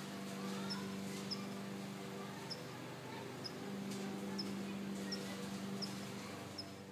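Outdoor ambience: a steady low hum under a short, high chirp that repeats about once every half second to second.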